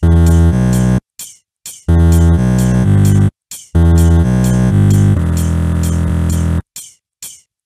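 Electronic music: loud held synthesizer bass and chords come in blocks, cut by sudden short gaps filled with quick percussion ticks. Near the end the synth drops out and only the ticks go on, about three a second.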